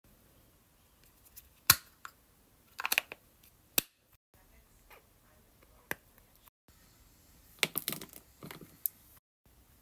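Plastic skincare packaging being handled: several sharp single clicks and two short flurries of clattering and rustling, as of a cap being opened and the product being dispensed.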